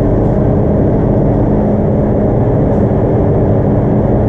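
Steady, loud machine drone of paint-booth equipment, most likely the booth's ventilation, with a constant low hum and a few steady tones.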